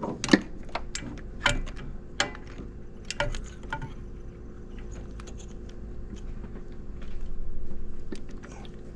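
Ratchet and socket clicking and clinking on metal in a few scattered strokes as the bolts get a final snug, followed by a louder rustle near the end.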